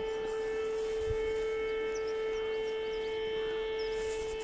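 Siren sounding one steady, unbroken tone with a ladder of overtones, held at the same pitch throughout.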